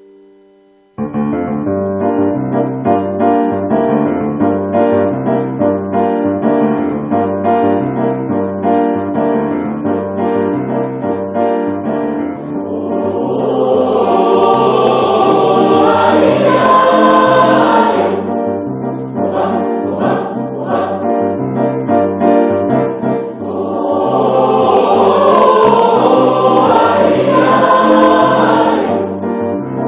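Music: a song with keyboard and a steady bass rhythm, starting about a second in, with a group of voices singing in two fuller passages, one around the middle and one near the end.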